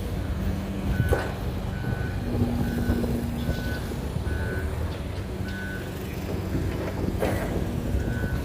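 A heavy machine's reversing alarm beeping at a single high pitch, mostly every half second to a second with a short pause near the end, over the steady low drone of a diesel engine. Two sharp knocks sound, about a second in and again near the end.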